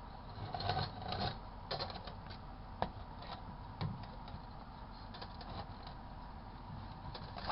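Scattered, irregular clicks and light knocks from a Sharp Carousel microwave being handled and set, likely its buttons being pressed.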